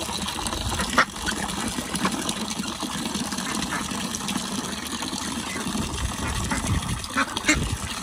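Water pouring from a pipe into a small, shallow duck pond with a steady splash, while ducks and geese give a few short quacks and honks.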